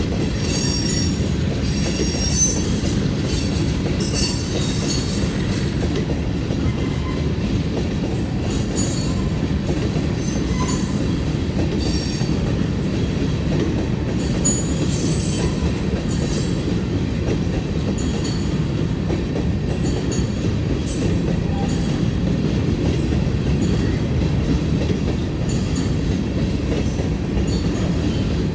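Covered hopper cars of a freight train rolling past: a steady rumble of steel wheels on rail, with short high-pitched wheel squeals and clicks recurring throughout.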